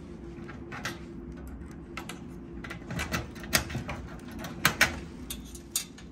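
A series of irregular sharp clicks and light knocks over a steady electrical hum, busiest toward the middle.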